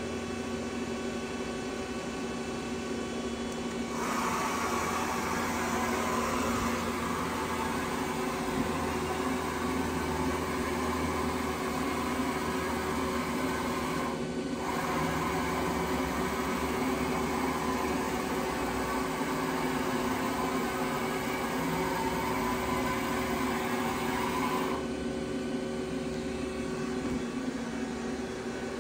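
Steady machinery hum in a shop, made of several fixed tones. A louder hiss joins it about four seconds in, drops out for a moment partway through, and stops a few seconds before the end.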